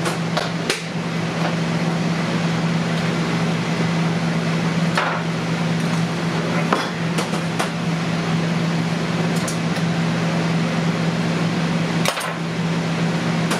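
A steady low hum of kitchen machinery, with a few scattered sharp knocks and taps of a knife against a plastic cutting board as raw beaver meat is cut apart.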